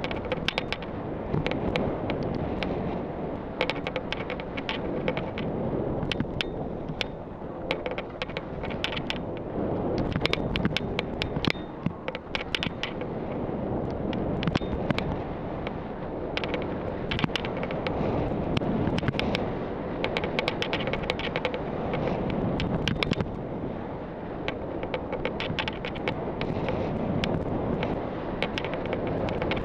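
Skis running down a firm snow slope, heard from a helmet-mounted camera: a steady rush of wind on the microphone and skis on snow, broken by frequent sharp crackling clicks.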